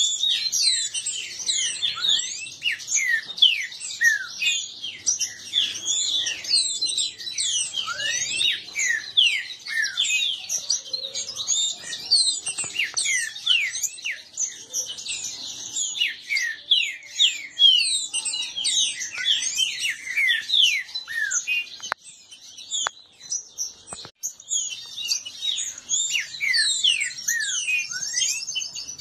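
Green-winged saltators (trinca-ferro) singing fast and over each other in a rival song contest: a dense, unbroken stream of quick chirps and whistled notes. The singing thins briefly about three-quarters of the way through, then comes back as full as before.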